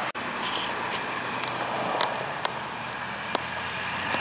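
Steady hum of road traffic, cars passing on a road, with a few sharp clicks from about two seconds in.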